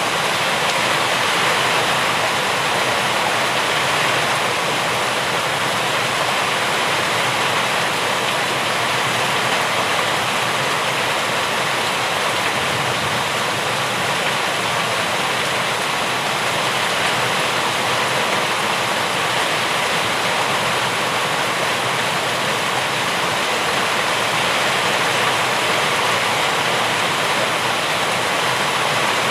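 Steady heavy rain falling, a continuous even hiss with no individual drops or thunder standing out.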